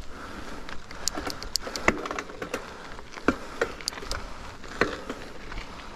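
Mountain bike riding over a dirt trail: steady rolling noise with irregular sharp clicks and rattles from the bike, the loudest knocks near 2, 3.3 and 5 seconds in.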